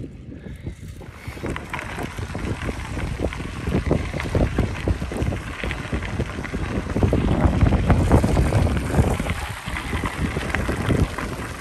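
Wind buffeting the microphone of a rider cycling along at speed, an uneven low rush that grows stronger for a couple of seconds after the middle.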